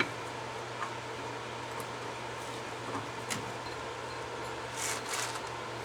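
Steady low hum with a few faint clicks and a short scuffing noise about five seconds in, from handling a seized front brake caliper that will not compress.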